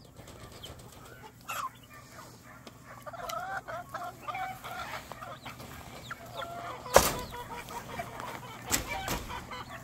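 A flock of chickens clucking, with scattered short calls. A sharp knock comes about seven seconds in, and a smaller one follows near the end.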